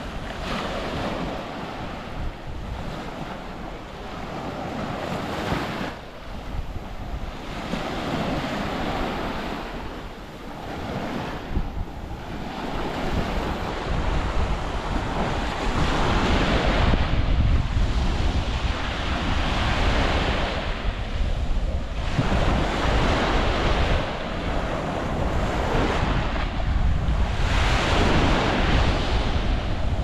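Mediterranean waves washing onto a sandy shore, surging and falling back every few seconds. Wind buffets the microphone with a low rumble that grows stronger from about halfway through.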